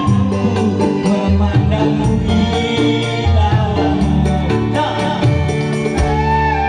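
Music with a melodic line, probably sung, over a moving bass line and a regular beat.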